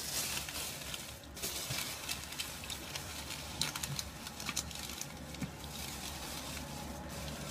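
Thin plastic shopping bag rustling and crinkling as hands handle it and rummage inside, with many small crackles.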